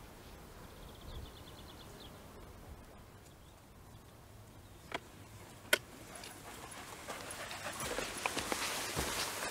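Footsteps of a hiker walking over moorland grass and stones toward the camera, growing louder from about six seconds in, after two sharp clicks. About a second in there is a brief fast run of high ticks.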